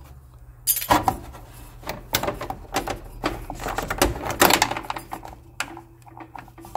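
Irregular clicks, knocks and rattles of hard plastic as the water purifier's filter cartridges and their push-fit tube fittings are handled, over a low steady hum.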